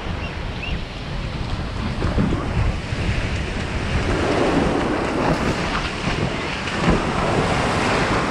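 Wind rumbling on a handheld camera's microphone over breaking surf, with water splashing as people run into the shallow waves.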